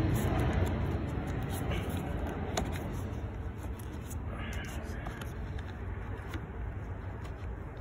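Low rumble of passing traffic fading away, with a few light clicks.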